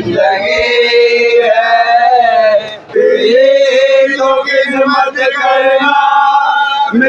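A man singing an Urdu devotional song in long, drawn-out held notes without words, with a short break for breath just before three seconds in.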